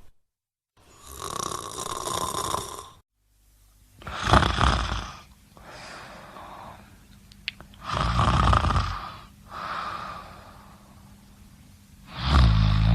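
A sleeping person snoring: three loud snores about four seconds apart, with softer snoring breaths between them.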